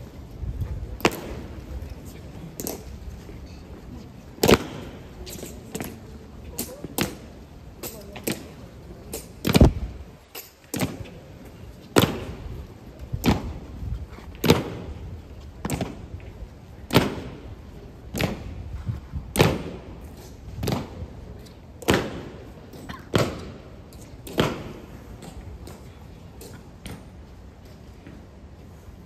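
Honor guard ceremonial drill: sharp strikes on the stone pavement, about one every second and a quarter, alternating louder and softer, fading out near the end.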